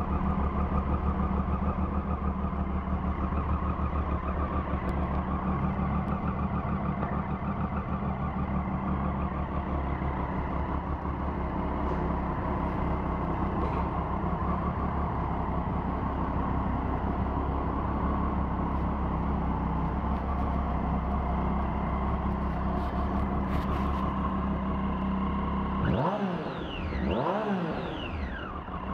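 Triumph Daytona 675 inline three-cylinder engine idling steadily, then revved up and back down a few times near the end.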